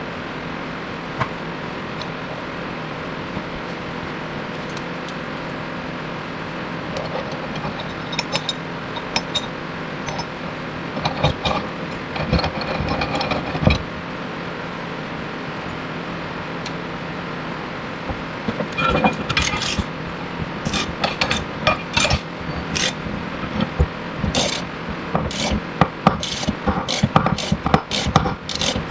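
Metal tools clinking and knocking on steel over a steady hum: a bearing splitter being fitted and worked on a wheel bearing race. Scattered knocks at first, then quick runs of clicks and knocks in the last ten seconds.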